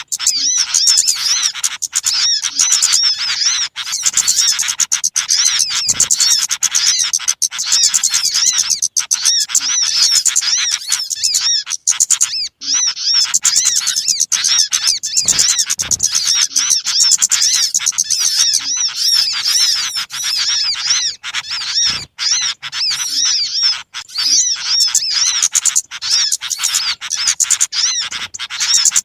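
Dense, unbroken chattering of many small birds calling at once, quick high chirps overlapping without pause: a small-bird lure call (suara pikat) meant to draw small birds in.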